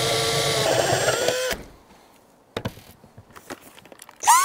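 Makita 18V cordless drill with a step drill bit cutting through the van's steel roof panel: a steady whine that rises in pitch as the bit breaks through, then stops about a second and a half in. A few light clicks follow, and right at the end a motor whirs up again with a rising whine.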